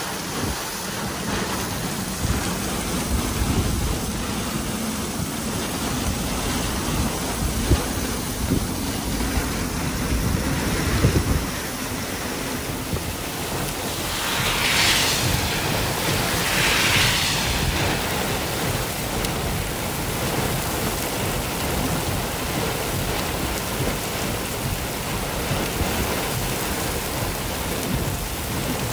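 Heavy wind-driven rain falling in a steady hiss on a road and gravel. About halfway through, two cars pass one after the other on the wet road, each a swelling hiss of tyres over the rain.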